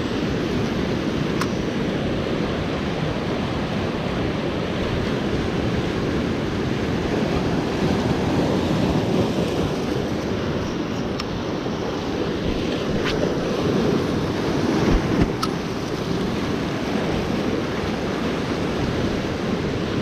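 Sea surf washing over shoreline rocks, a steady rushing with wind on the microphone.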